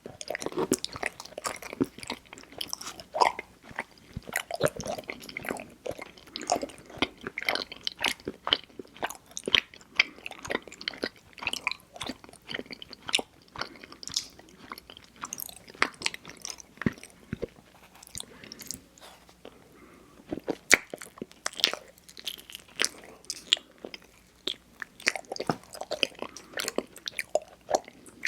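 Close-miked mouth sounds of someone chewing and biting mochi ice cream: a steady, irregular run of short wet clicks and smacks, several a second.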